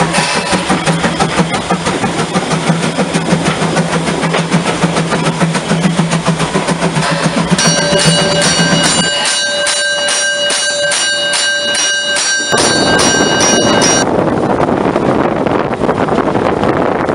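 Narrow-gauge steam locomotive 99 1771-7 running with a rhythmic pulsing beat. About halfway through a bell rings in quick repeated strokes, about two to three a second, for some six seconds, then stops suddenly. Steady running noise with wind on the microphone follows.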